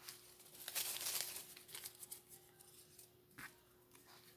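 Paper rustling and crinkling, loudest in the first second and a half, then a few faint ticks.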